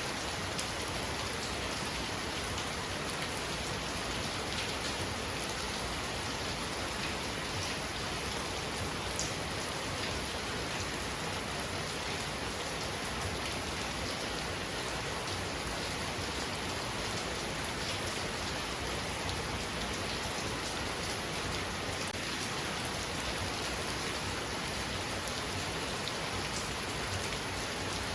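Heavy rain falling steadily, a dense even hiss with scattered drop ticks on surfaces.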